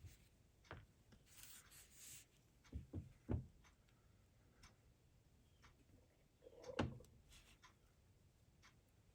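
Quiet light clicks and taps of small parts and tools being handled on a workbench, with a brief rustle about a second and a half in and sharper taps around three seconds and just before seven seconds.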